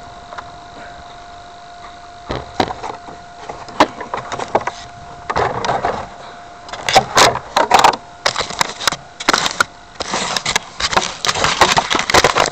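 Handling noise picked up by a dashcam strapped under an RC model plane's belly as the plane is lifted off the sand and carried: scattered clicks and knocks at first, turning into dense rubbing and crackling after about five seconds. Under it runs a faint steady tone that stops about ten seconds in.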